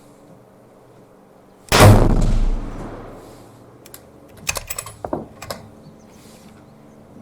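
A single rifle shot from a Browning X-Bolt bolt-action rifle, about two seconds in, echoing for about a second. A few seconds later come a quick series of sharp metallic clicks as the bolt is worked to chamber the next round.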